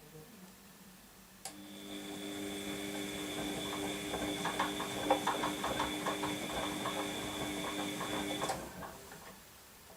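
Washing machine motor turning the drum in a wash-cycle tumble: a steady motor whine with a fast clicking rattle. It starts with a click about a second and a half in and stops abruptly near the end, leaving the machine at rest.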